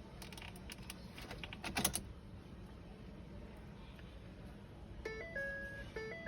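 A flurry of clicks in the first two seconds, then from about five seconds in the Ford EcoSport's electronic warning chime: a short high note dropping to a held lower one, repeating about once a second. It sounds along with the dashboard error on a car that will not crank.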